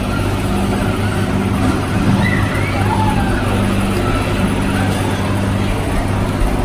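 Steady low mechanical hum, with faint children's voices and squeals in the background.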